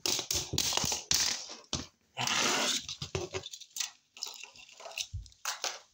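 Clicking, rustling and scraping handling noises as a toy scorpion and a plastic stick are grabbed and moved about close to the phone, with a longer rushing scrape about two seconds in.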